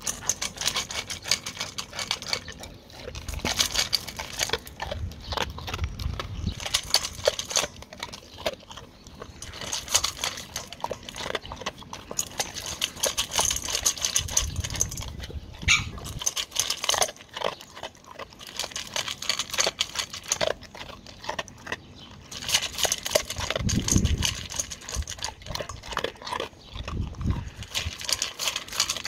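A dog eating dry kibble from a stainless steel bowl: steady, irregular crunching and clicking as the pieces are chewed and knocked about in the metal bowl, with a few low thumps now and then.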